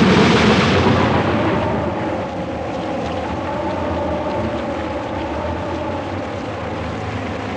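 A thunderclap rolling away over the first two seconds, then the steady noise of a storm.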